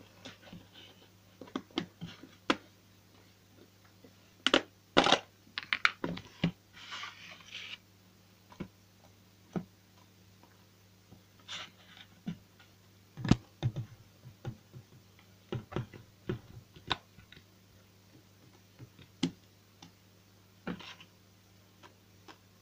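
Slime being squeezed and pressed by hand, making irregular sharp clicks and pops, with a busier crackling stretch a few seconds in, over a faint steady low hum.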